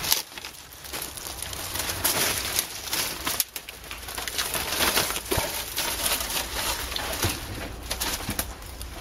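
Dry twigs and undergrowth rustling and crackling as someone pushes through scrub on foot, an irregular run of small snaps and brushes.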